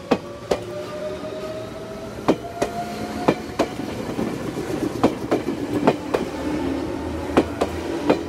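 Meitetsu electric commuter train pulling away and passing close by. Its wheels clack over rail joints in quick pairs over a rolling rumble, and for the first three seconds a motor whine rises in pitch as it accelerates.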